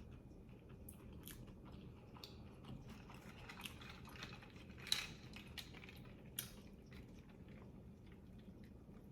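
Faint close-up chewing of a grinder sandwich, with scattered soft mouth clicks and smacks; the sharpest come about five seconds in and again a little after six seconds.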